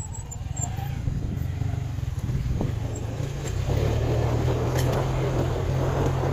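Motorcycle engine running steadily with a low rumble, growing louder a little past halfway through.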